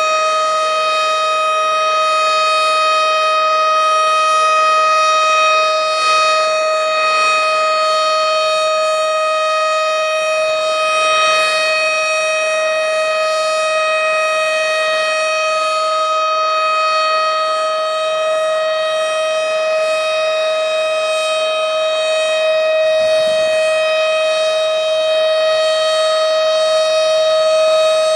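Tornado warning siren holding one steady, unwavering tone, loud and rich in overtones.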